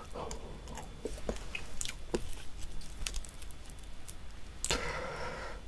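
Close-miked chewing of chewy boiled octopus: moist, sticky mouth clicks and squishes, with a longer, noisier squelch about five seconds in.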